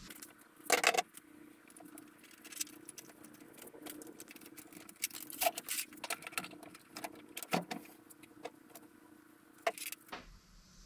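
Scattered clicks, knocks and light rattles of small hard objects being handled, with the loudest knock about a second in, over a steady low hum that stops near the end.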